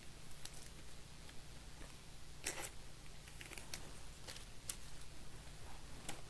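Trading cards being handled and slid into plastic penny sleeves: scattered short plastic rustles and clicks, with a longer rustle about two and a half seconds in, over a steady low hum.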